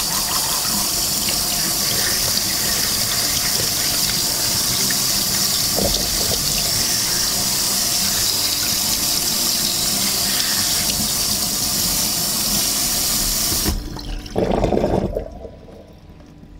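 Kitchen tap running steadily onto a fish being rinsed by hand in a stainless steel sink. The flow stops abruptly near the end, and a short, louder splash of water follows.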